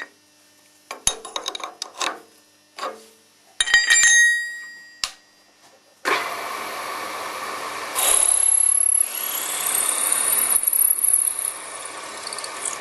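Metal tool clinks for several seconds, a 5 mm drill bit being fitted. About six seconds in, the machine's motor starts and runs steadily; two seconds later it gets louder, with a high whine, as the bit drills the hole to be tapped 6 mm.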